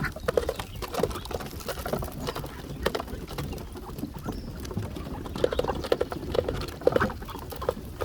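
Ducks feeding on birdseed, their bills pecking and dabbling in quick rattling bursts, busiest in the second half.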